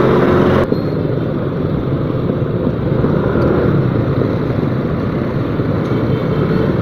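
Motorcycle ride heard through an action-camera mic: engine running under wind rush. It cuts off abruptly about half a second in, giving way to a lower, rougher engine and traffic rumble while riding slowly through congested traffic.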